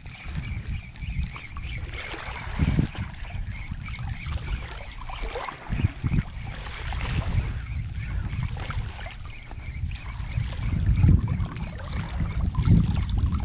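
Wind buffeting the microphone in uneven gusts over water sloshing, with a faint, high, even ticking that repeats about three times a second.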